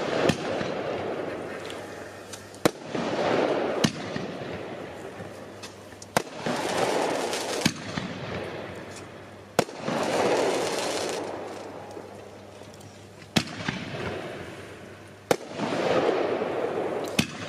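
Weco Casino Royal 25 mm firework battery firing single shots, about nine in a row spaced one to four seconds apart. Each shot is a sharp report followed by a second or two of noisy swell as the stars burst.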